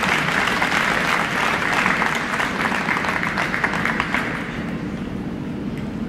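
A crowd applauding, many hands clapping at once. The clapping dies away about four seconds in.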